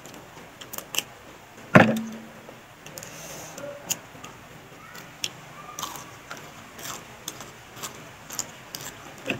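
Fresh green bean pods being snapped and split open by hand: a scattered run of crisp clicks and snaps, with one loud thump about two seconds in.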